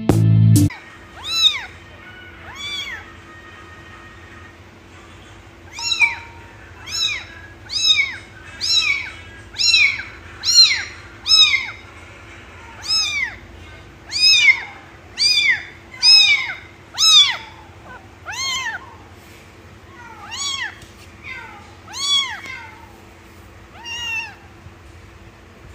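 A young kitten mewing over and over, high thin mews that each rise and then fall in pitch, coming about one a second through the middle and more sparsely near the end.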